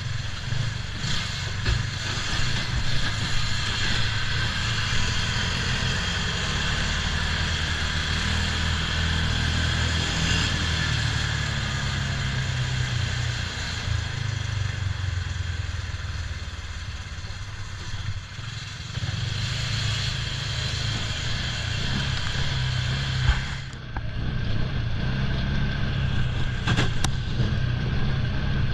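Off-road buggy engine running steadily while being driven, with rattling and clatter from the ride.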